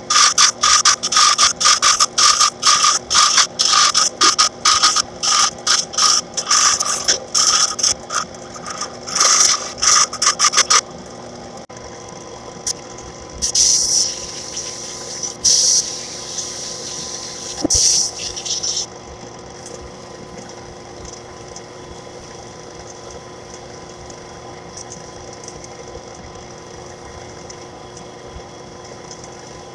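Wood lathe spinning a heart pine handle blank while a turning tool cuts it, loud scraping strokes several a second for the first ten seconds or so. After that only a few shorter passes come, around the middle, and then just the lathe's motor hums steadily.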